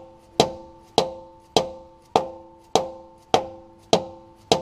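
Hammer blows on a homemade PVC driver, driving a new tailshaft bushing into a Muncie four-speed's tail housing: eight even strikes about every 0.6 s, each with a brief ringing tone after it.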